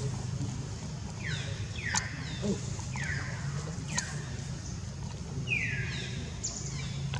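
Baby long-tailed macaque giving about five short, high-pitched cries, each falling in pitch, roughly a second apart, over a low steady hum.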